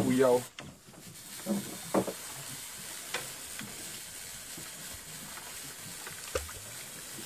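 Large conventional fishing reel being cranked by hand to bring in line: a steady hiss with a few sharp clicks.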